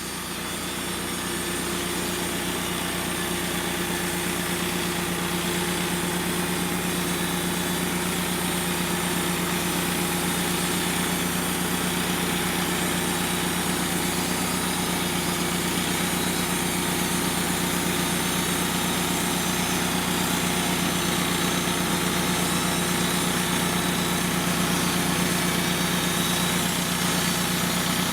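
Portable band sawmill's engine running at a steady speed, fading in over the first couple of seconds.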